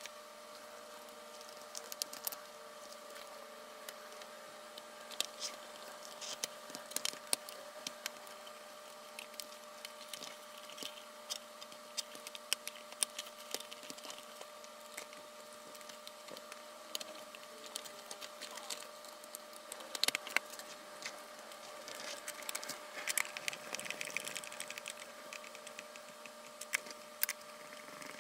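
Scattered light clicks and taps of hands working a FrSky Taranis transmitter's plastic case as its two halves are fitted together and screwed back shut, over a faint steady hum.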